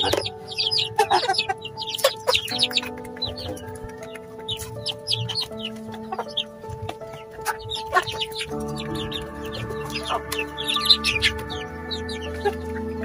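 Native chickens clucking with many short high calls, and beaks tapping on a concrete floor as they peck feed.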